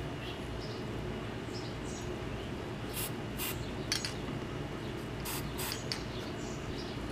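Light clicks and taps of a license plate being fitted onto its mounting brackets, a handful of them between about three and six seconds in, over a steady background hum with a few faint high chirps.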